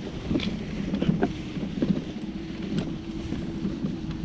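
Mini Crosser mobility scooter on the move: a steady hum from its electric drive over a low rumble from the tyres on a rough path, with a few scattered knocks and rattles.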